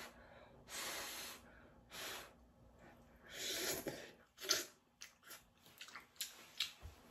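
A mouth slurping instant noodles up from a cup off chopsticks: three slurps, the first about a second long. After them come a string of short clicks and smacks from the mouth.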